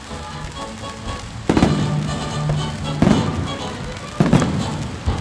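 Aerial firework shells bursting: about four loud bangs, one every second or so after the first, each trailing off in echo, over live orchestral music.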